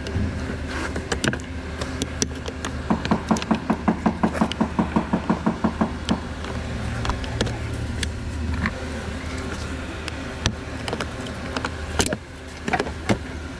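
Plastic interior trim on a Toyota Camry's A-pillar being pried and pulled loose, giving scattered sharp clicks and knocks, with a quick run of about five knocks a second lasting some three seconds. A steady low hum runs underneath.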